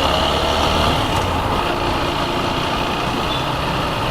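TVS Apache RTR 160 4V motorcycle's single-cylinder engine running steadily under way, mixed with even road and wind noise.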